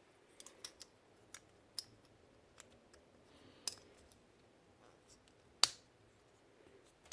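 Scattered small clicks and taps of a miniature model gun's parts being handled and pressed back into place, with one sharper click about five and a half seconds in.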